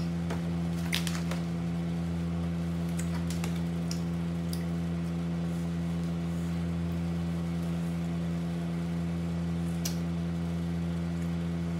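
A steady low mechanical hum, like a running appliance, with a few short clicks and crinkles as a plastic bag of rice cakes is handled.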